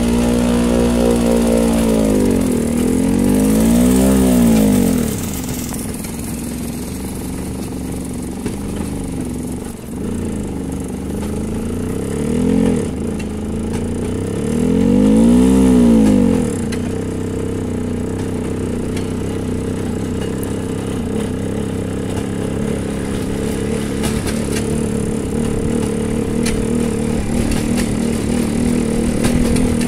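Small engine of a light motor draisine (a rail trolley) running along a narrow-gauge track. Its pitch rises and falls several times in the first half as it is revved, then it runs steadily.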